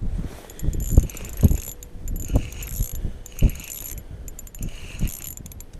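Fishing line from a tip-up being hauled in hand over hand while a hooked fish is brought up through the ice hole. It makes rhythmic scratchy rubbing strokes about once a second, with dull low knocks in between.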